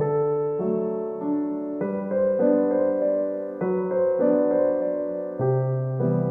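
Background music: soft piano chords changing about once a second.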